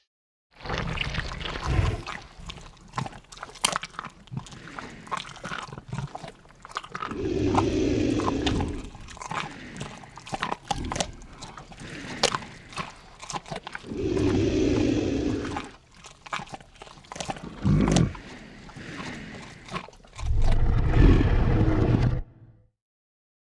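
Lion feeding on prey: steady tearing and crunching with many sharp clicks, broken by three deep growls about seven, fourteen and twenty-one seconds in. The sound stops about twenty-two seconds in.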